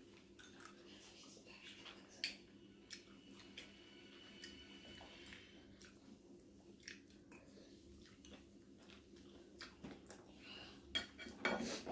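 A person chewing and biting food close to the microphone, quiet wet mouth sounds and faint scattered clicks, over a faint steady low hum.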